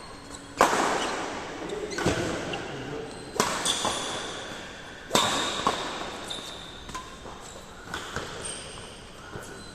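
Badminton rackets striking a shuttlecock in a rally: sharp hits about every one and a half seconds, each echoing in a large hall, with lighter knocks toward the end.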